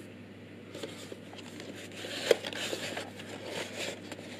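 Handling noise from a resistor assortment package being moved in the hands: rustling and light clicks, with one sharp click a little over two seconds in.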